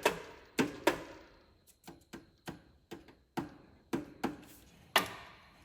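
Sharp metal clicks and clinks at an irregular pace, about a dozen in five seconds, as sockets and tools are handled in a toolbox drawer; the loudest comes near the end.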